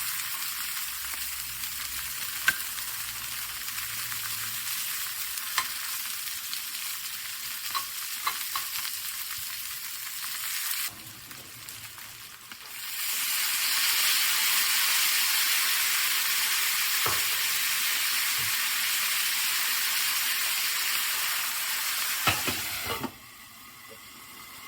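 Onions sizzling in olive oil in a frying pan, with small taps of a utensil stirring them. The sizzle breaks off around eleven seconds in, then comes back louder and steady for about ten seconds before dropping away near the end.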